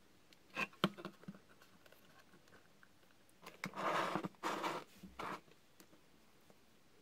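Small handling noises: a few light clicks and taps near the start, then about two seconds of rubbing and scraping as the wooden base of a miniature dollhouse room is gripped and moved about on a cutting mat.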